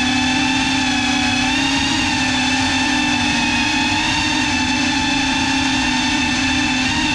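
GEPRC CineLog35 cinewhoop's brushless motors and ducted 3.5-inch propellers whining steadily in slow flight, the pitch wavering slightly with small throttle changes.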